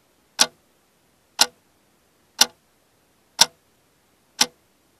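Clock ticking: single sharp ticks, one each second, five in all.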